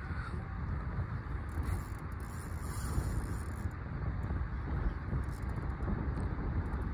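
Wind buffeting an open-air microphone: a steady, uneven low rumble.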